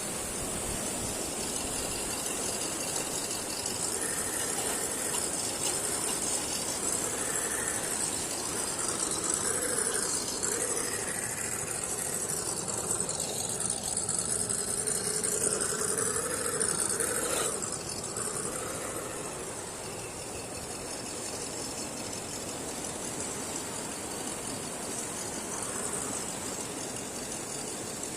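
Electric motor and gear train of a 1:10 RGT EX86010-CJ RC rock crawler whining as it drives, the pitch rising and falling with the throttle, busiest in the first two-thirds and easing off later, over a steady high hiss.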